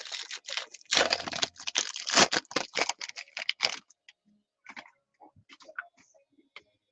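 Foil wrapper of a trading-card pack crinkling and tearing open, a rapid crackle for about four seconds, then a few soft scrapes and clicks as the cards are handled.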